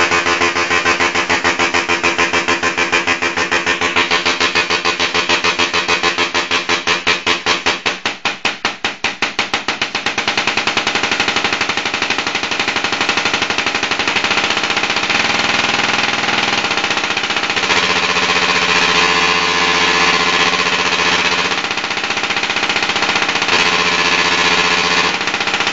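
Solid-state Tesla coil's arcs buzzing loudly at a steady pitch, pulsing rapidly for the first several seconds, then a denser, smoother buzz whose pitch shifts a few times.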